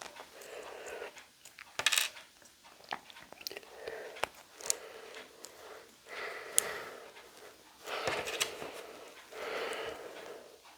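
Small plastic LEGO pieces clicking and clattering as they are handled and snapped together, a few sharp clicks standing out, between soft noisy patches every couple of seconds.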